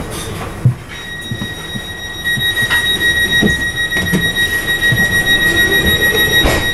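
A steady high-pitched electronic warning tone, holding one pitch for about seven seconds from about a second in, inside an electric multiple-unit train standing at a platform: the door-closing signal. A low rumble and a few knocks sit underneath.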